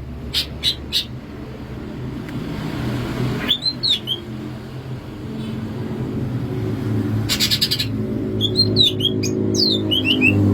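Cucak ijo (green leafbird) singing in short, sharp, downward-sliding whistled notes that come in quick runs. There are rattling bursts just after the start and again at about seven seconds. A low steady hum underneath grows louder toward the end.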